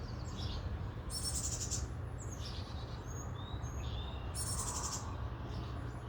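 Small birds chirping: short, high whistled chirps, with a rapid high trill about a second in and another after four seconds. A steady low hum runs underneath.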